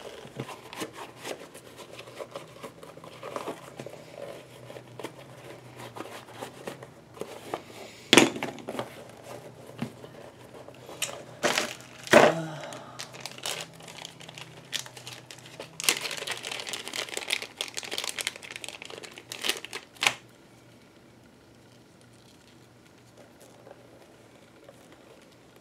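Hands handling a leather bag and a small plastic bag of parts: irregular rustling and crinkling with scattered sharp clicks, the loudest about 8 and 12 seconds in, and a denser crinkling burst between about 16 and 20 seconds.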